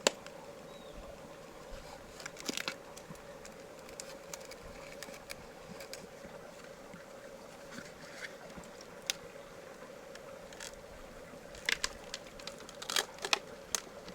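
Scattered sharp clicks and taps, some in quick clusters about two and a half seconds in and near the end, over a steady faint hum.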